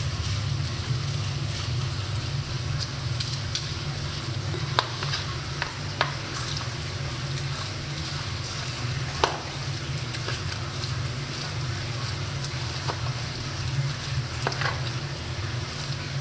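A metal spoon stirring and mashing raw minced beef with egg and breadcrumbs in a plastic bowl: a steady wet, crackling mixing noise with a few sharp clicks, over a steady low hum.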